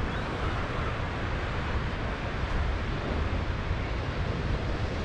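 Steady wind rumbling on the microphone, mixed with the wash of surf from the beach.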